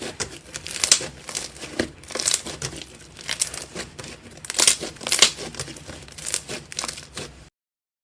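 Slime being handled, giving a run of irregular crackling, popping clicks with louder bursts about every second. The sound cuts off suddenly near the end.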